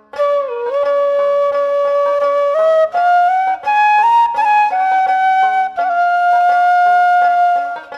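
Background flute music: a slow melody of long held notes that slide from one to the next, over a low steady drone.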